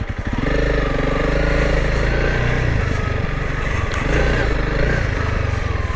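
Honda CRF300L Rally's single-cylinder four-stroke engine idling with even, slow pulses, then picking up revs a moment in and running steadily at low speed, with a brief easing off and pick-up again near the end.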